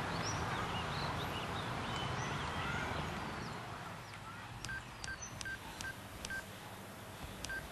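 Nokia mobile phone keypad beeping as a number is keyed in: six short beeps of the same pitch, each with a small click, unevenly spaced over the last three seconds, after a few seconds of soft background hush.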